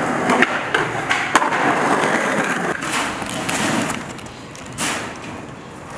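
Skateboard wheels rolling on concrete, with several sharp clacks of the board; the loudest comes about a second and a half in. The rolling sound quietens near the end, with one more clack.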